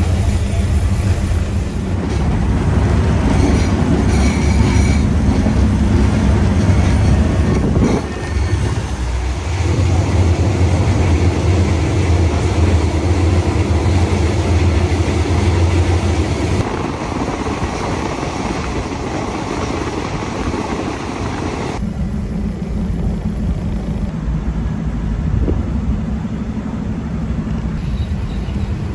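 Diesel railcar under way, heard from a carriage with open windows: a steady low engine drone over the rumble of the wheels on the track. The sound changes abruptly several times.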